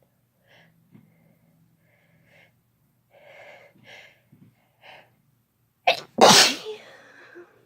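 A person sneezing once, loudly, about six seconds in, with a short burst just before the main sneeze. Several short, catching breaths come before it as the sneeze builds.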